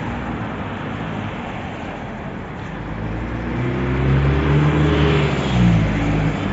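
SUVs of a motorcade driving past over a steady road hum. About three and a half seconds in, one passes close, its engine note swelling and then dropping away near the end.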